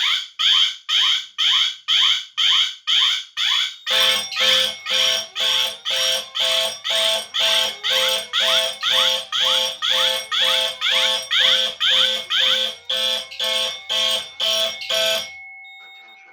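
A bank of fire alarm horns and horn-strobes sounding together in rapid, even march-time pulses, the 120 BPM coding set on both panels. About four seconds in, more devices join, making the pulses denser and fuller. All of them cut off about a second before the end, leaving a faint steady tone.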